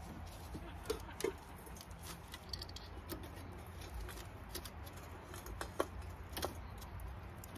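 Irregular light crackles and clicks from a small twig fire burning in the base of a stainless chimney-style camp kettle, as it is poked with a metal rod. A few sharper clicks stand out, about a second in and again near six seconds.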